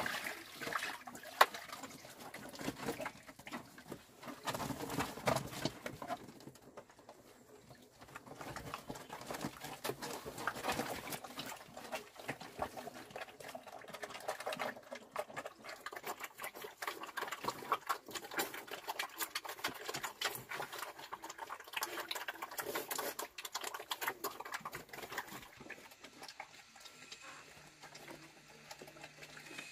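Swill poured from a plastic bucket into a wooden trough, with a sharp knock about a second in, then a group of piglets slurping and chomping the bran mash and grunting as they feed.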